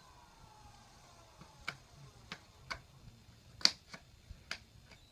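A handful of sharp, irregular clicks and snaps, the loudest about two-thirds of the way through, from hand tools working a fiberglass leg cast open during cast removal.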